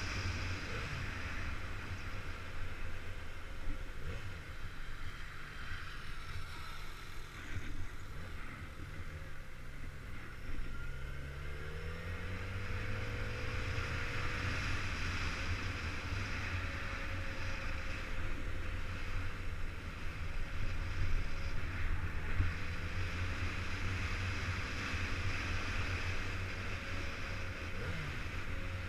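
Motorcycle riding with wind rushing over the microphone, the engine note climbing as it revs about ten seconds in.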